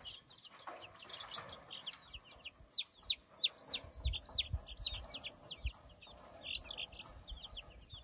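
A brood of baby chicks peeping, many short high cheeps, each dropping in pitch, following one another almost without a break. A few soft low thumps underneath.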